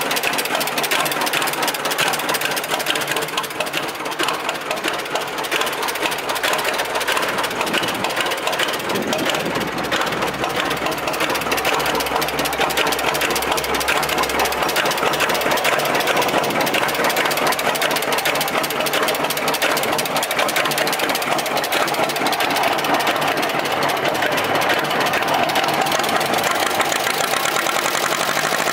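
A 1936 John Deere unstyled Model B tractor's two-cylinder engine running steadily with an even, rapid pulsing beat.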